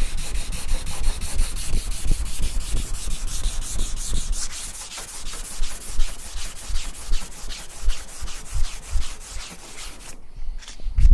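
Fine-grit sandpaper rubbed by hand in quick back-and-forth strokes, about four a second, over repair patches on a car bonnet to knock them flat. The strokes stop about ten seconds in.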